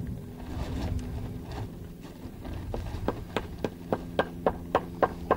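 Rapid hammering on a building site: a quick run of sharp strikes, about four a second, starting about halfway in, over a steady low hum.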